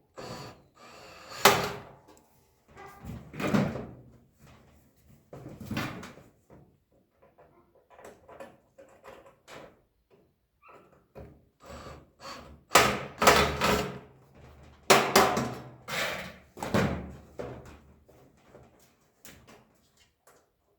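Irregular clunks, knocks and rattles of a toaster oven's sheet-metal shell and parts being handled and fitted during re-assembly, a few sharp knocks in the first six seconds and a louder cluster of clatter in the second half.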